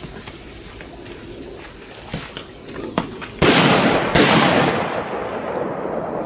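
Two loud explosive bangs from set-off pyrotechnics, less than a second apart, each trailing off over a second or two, preceded by a couple of small sharp snaps.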